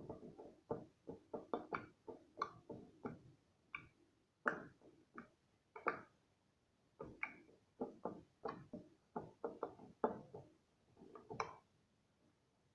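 Slime being squeezed and pressed by hand, making irregular sticky clicks and pops in quick clusters, with a few brief pauses.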